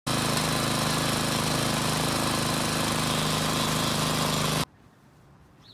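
Gas-powered rototiller's small engine running steadily as the tines churn through grass and sod. It cuts off suddenly about four and a half seconds in, leaving faint outdoor background with a short bird chirp near the end.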